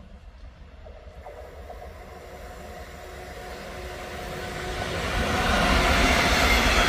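DB class 146 electric locomotive hauling double-deck coaches, approaching and passing close by. The wheel and rail noise grows steadily louder, with a steady tone from about a second in.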